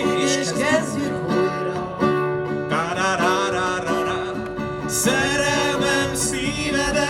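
Live band playing a Hungarian pop song: plucked acoustic guitar and strings under a sung vocal line.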